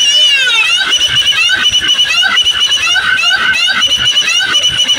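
A loud DJ sound system playing an electronic dance track. A high synth line repeats short notes and quick pitch sweeps over a steady thudding beat.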